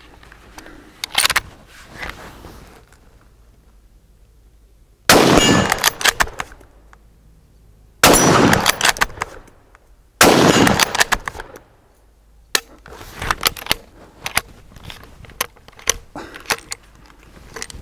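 Three shots from a Steyr Scout bolt-action rifle in .223 Remington, about five, eight and ten seconds in, each ringing on for over a second. After them come rapid small metallic clicks and rattles as the bolt and magazine are worked, during a magazine feeding malfunction.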